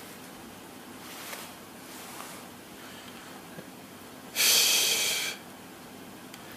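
A man's short, loud breath close to the microphone, lasting just under a second a little past the middle. Faint steady hiss lies under the rest.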